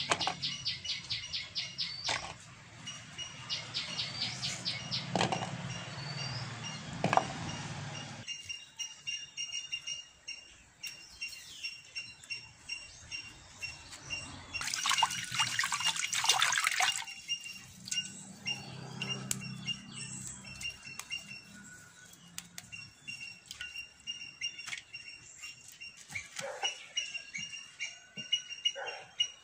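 Birds chirping in the background, with water splashing in a bowl in the first several seconds, a loud rustle of leafy branches about halfway through, and a few knife taps on a wooden cutting board near the end.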